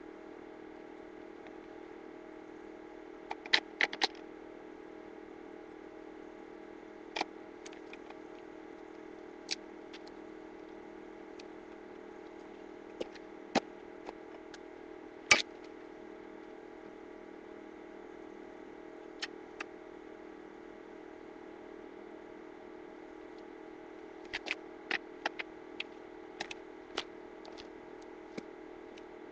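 Scattered sharp clicks and clacks of parts or tools being handled, some singly and some in quick clusters, over a steady low hum.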